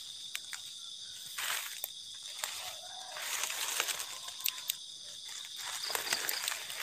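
Night insects, crickets, chirring steadily at a high pitch, with irregular crunching and rustling of footsteps through dry leaf litter.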